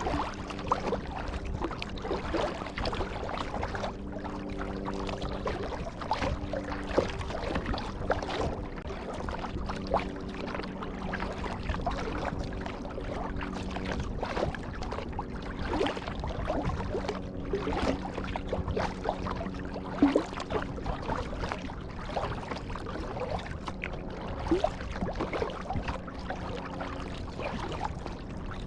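Kayak paddle strokes: the blades dip and splash into the water every second or two, with water trickling and dripping off them between strokes.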